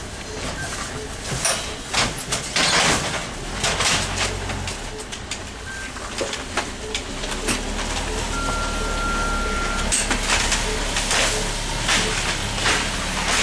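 Wheeled ambulance stretcher being unloaded and rolled: repeated knocks, clatter and rustling of its frame and load over a low vehicle rumble. A steady beep sounds for about a second and a half past the middle.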